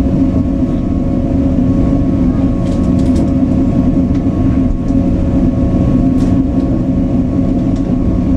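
Inside a Stadler FLIRT 4 electric multiple unit (SŽ class 510) running along the line: a steady rumble of the wheels and running gear with a constant hum from the electric drive. A few faint high ticks come about three seconds and six seconds in.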